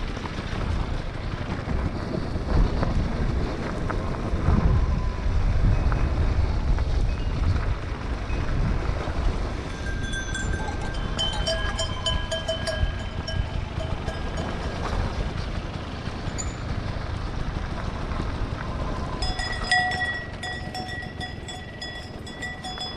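Enduro motorcycle engine running at low speed, with a low rumble of wind and rough track. Cattle cowbells ring and clink over it, first from about halfway through and more loudly near the end as the bike passes among the cows.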